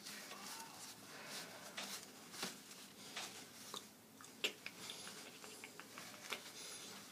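Faint rustling of tie fabric and shirt cloth being pulled and knotted by hand, with scattered small clicks; one sharper click about four and a half seconds in.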